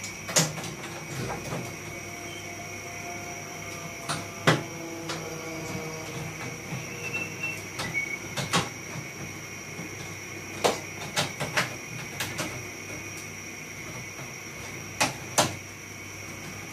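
Scattered clicks and knocks of plastic parts as an air-conditioner indoor unit is handled and taken apart, in a small cluster a little past the middle, over a steady high tone.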